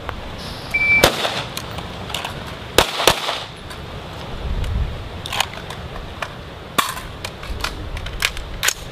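Rifle shots fired singly and in a quick pair, spaced a second or more apart, with fainter shots in between. A short high beep comes just before the first shot.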